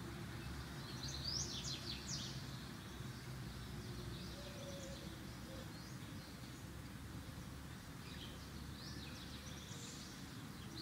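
Small birds chirping in short clusters of quick high notes, about a second in and again near the end, over a steady low background hum.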